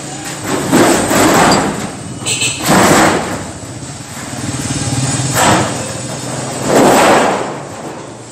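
A large thin galvanized steel sheet being handled and flexed by hand, giving about four loud rumbling swells of wobbling sheet metal, with a steady low hum underneath.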